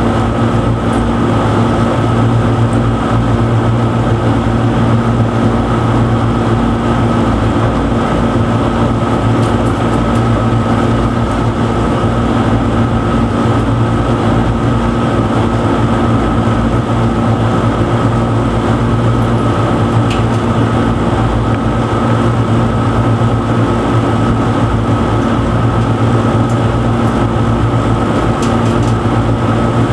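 Steady, loud machine drone with a constant low hum and a fainter high tone, unchanging throughout.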